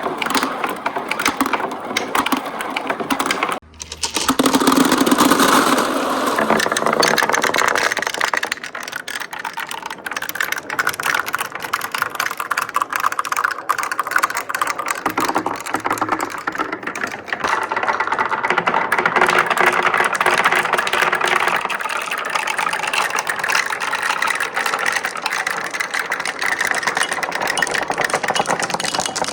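Marbles rolling and clattering down a wooden marble run with right-angle turns: a dense, continuous rattle of many small clicks, dropping out briefly about three and a half seconds in.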